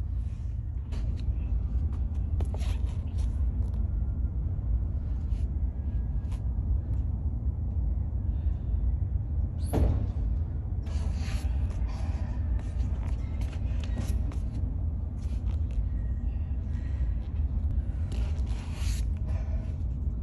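Gym room noise: a steady low rumble with scattered knocks and clicks, the loudest knock about halfway through.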